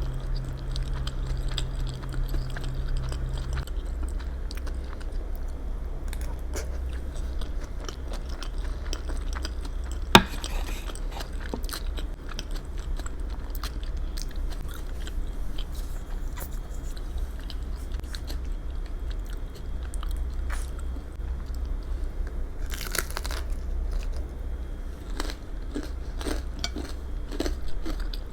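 Close-miked eating: chewing and biting with many small mouth clicks, and one sharp click about ten seconds in. A steady low hum runs underneath.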